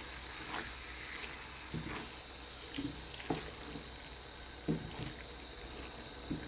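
Diced raw chicken sizzling gently in oil in a non-stick frying pan as it is stirred, with a handful of short knocks of the silicone spatula against the pan.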